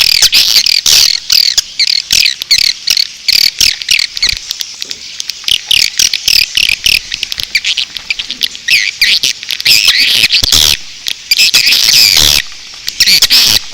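Swiftlet lure recording: a dense, continuous chorus of rapid twittering chirps, broken by many sharp clicks.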